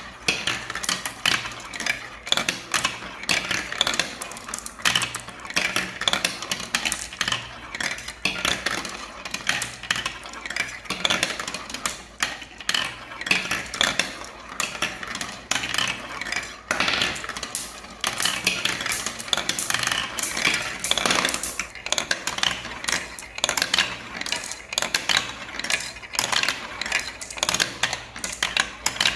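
Small balls rolling and clattering down a marble-run track: a dense, continuous rattle of many quick clicks as they bounce and knock along the runs.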